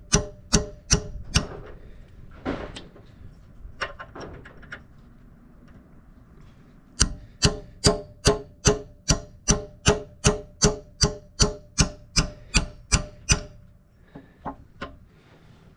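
Hammer blows driving a steel retaining pin into an excavator bucket tooth, each strike with a short metallic ring. A few strikes at the start and some lighter taps give way to a pause. Then comes a long steady run of about two and a half blows a second, followed by a few faint taps near the end.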